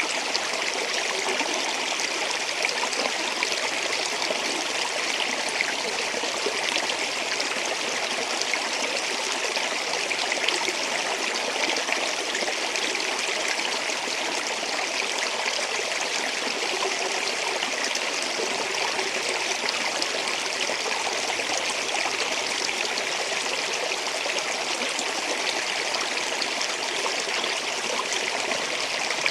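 Water flowing and splashing over rocks in a stream or small waterfall, a steady even rush.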